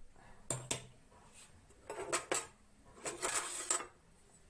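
Metal spoon clinking and scraping against a metal cooking pot as the thick dal is stirred: two quick clinks, then bursts of scraping and clatter about two seconds in and again a second later.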